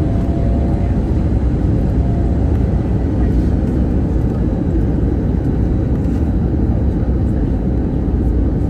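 Steady rumble of an Airbus A321neo heard from inside the cabin: engine and airflow noise, loud and even with no distinct bumps or changes.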